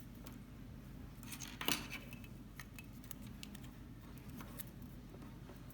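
Small scissors clicking and being handled, a few light metallic clicks with a sharper one about a second and a half in.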